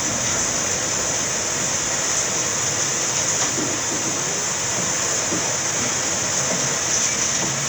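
Steady hiss of background noise, level and unchanging, with no distinct events standing out.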